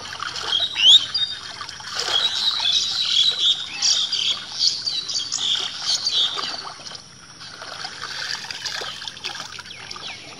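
Birds chirping again and again, with water splashing and trickling as a woven bamboo ghuni fish trap is moved and drained in shallow paddy water.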